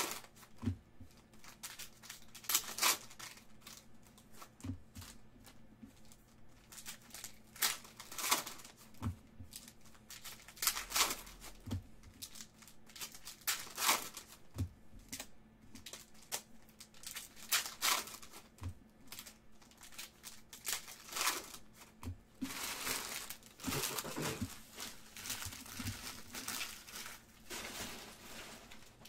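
Plastic trading-card pack wrappers being torn open and crinkled by hand, in a series of short rustling bursts, with a longer stretch of crinkling a little over twenty seconds in.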